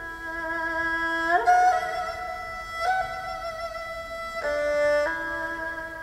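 Solo erhu played with the bow: a few long held notes with a bright, many-overtoned tone, linked by sliding changes of pitch, first an upward slide and later a drop to a lower note.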